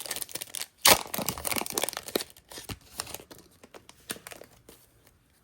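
Foil Pokémon booster pack wrapper being torn open and crinkled by hand, with one sharp tear about a second in and crinkling that dies away over the following seconds.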